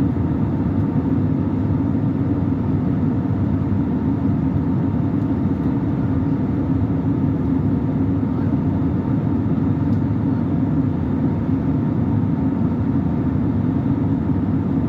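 Passenger airliner cabin noise in flight: the steady low drone of the jet engines and airflow, with a faint steady whine above it.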